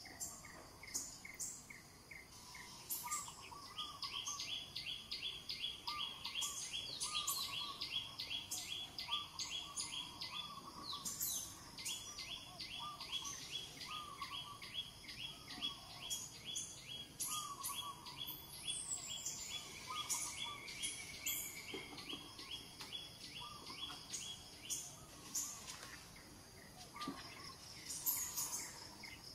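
Birds calling: a long run of short, high notes repeated about three times a second, over lower chirping notes that come roughly once a second.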